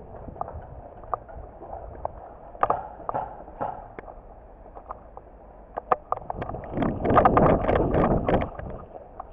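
Footsteps crunching through dry grass and rubble, with scattered clicks from carried gear, thickening into a louder spell of crunching and brushing near the end.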